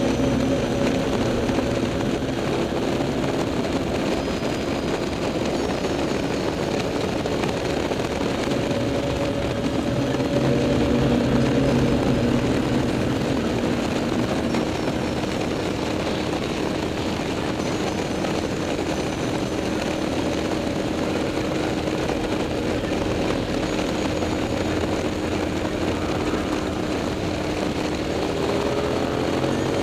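KTM 990 SMT's V-twin with a LeoVince exhaust running steadily under way, over a constant rush of wind noise. The engine tone swells a little about ten seconds in, and it rises just before the end as the bike accelerates.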